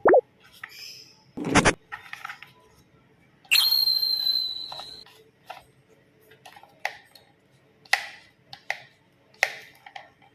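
Plastic toy trains and track pieces being handled, with sharp clicks and knocks, a short loud rattle about a second and a half in, and a steady high electronic beep lasting about a second and a half near the middle.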